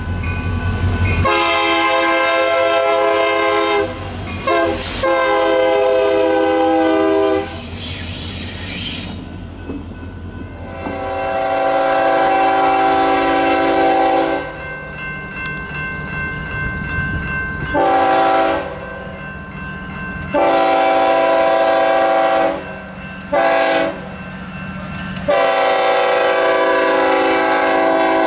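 Diesel freight locomotive air horns blowing a series of blasts, long ones with two short ones between, as warning for a grade crossing. A low train rumble sits under the first second.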